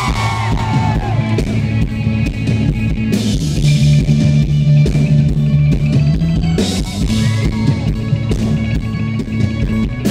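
Live rock band playing a passage with no lead vocal: electric guitar, held bass notes and a drum kit.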